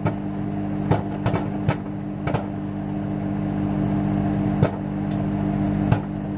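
Microwave oven running with a steady hum while a bag of popcorn cooks inside, the kernels popping in sharp, irregular cracks a few times a second apart.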